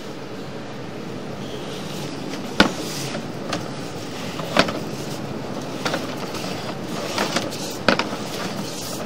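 Sewer inspection camera's push cable being worked through a sewer pipe: a steady rushing, scraping noise with three sharp knocks a few seconds apart.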